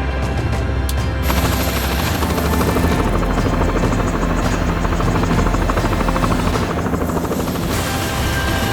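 Background music with a fast, rattling rhythm through most of it, shifting near the end.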